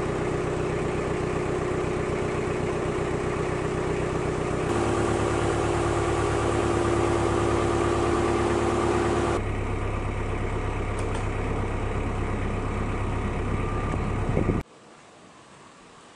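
Narrowboat diesel engine running steadily at low revs, its sound shifting abruptly a few times, then dropping suddenly to a much quieter low background near the end.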